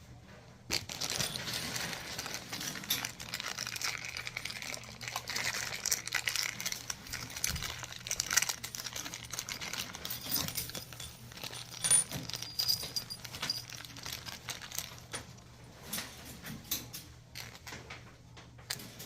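Small hard parts clicking and clinking with plastic crinkling, a dense run of handling noise as toilet tank hardware is worked on.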